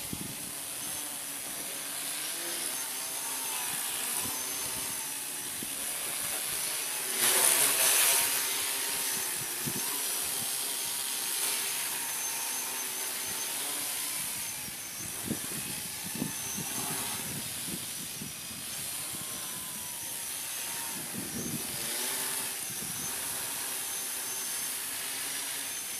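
Home-built tricopter's three brushless electric motors and propellers buzzing in flight, their pitch wavering as the flight controller corrects. About seven seconds in, a louder burst of rushing noise lasts for a second or so.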